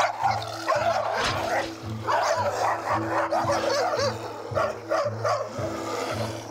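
Several dogs snarling and barking at each other in a scuffle, with background music and a steady bass line beneath.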